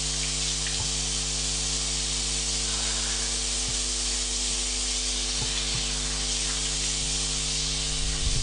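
Steady, fairly loud hiss with a low electrical hum underneath it, broken only by a few faint clicks and some low bumps near the end.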